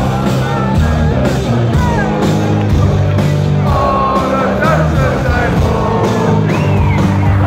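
Hard rock band playing live, heard loud from within the audience: heavy distorted guitars and bass, a steady drum beat, and a singer.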